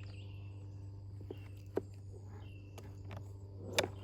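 A few light clicks and taps, about a second apart, from compost tumbler parts and bolts being handled during assembly. Faint bird chirps and a steady low hum sit underneath.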